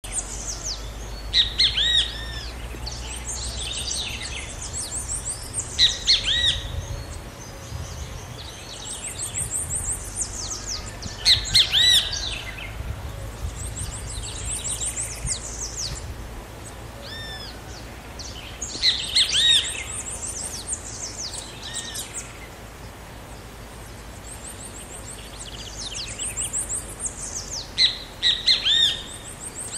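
Great kiskadee (bem-te-vi) calling in about five loud bursts of harsh, arched notes, with thinner high chirps between them. A low rumble runs under the first half.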